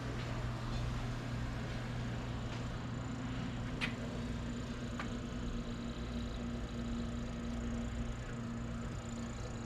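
Steady low hum of boiler-room machinery running, with two brief sharp clicks about four and five seconds in.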